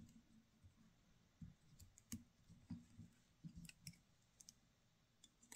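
Near silence with faint scattered clicks and light taps from hands working tying thread on a hook in a fly-tying vise, with one sharper click near the end.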